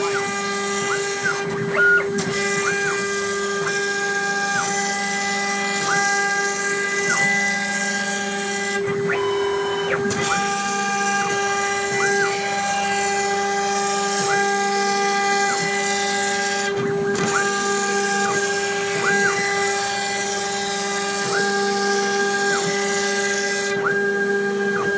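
CNC milling machine cutting lead acrylic: a steady high whine with a constant hiss. Short tones glide down and back up in pitch every second or two, and the hiss drops out briefly about four times.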